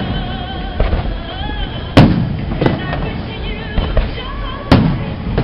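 Aerial fireworks shells bursting overhead: a series of sharp bangs with echoing tails, the loudest about two seconds in and another strong one near the end, with smaller pops between.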